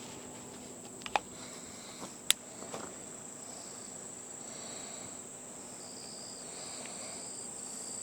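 Insects trilling steadily in a high, thin, unbroken tone, with a second, lower trill coming and going in the latter half. A few sharp clicks sound about one and two seconds in.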